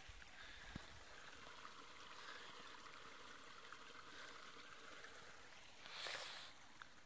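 Faint, steady rush of flowing stream water, with a brief louder burst of hiss about six seconds in.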